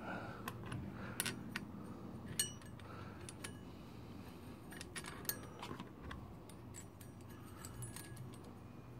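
Light metallic clinks and taps as small parts of a GY6 scooter engine's CVT drive are handled and fitted back in place, a dozen or so scattered clicks with a brief ring about two and a half seconds in.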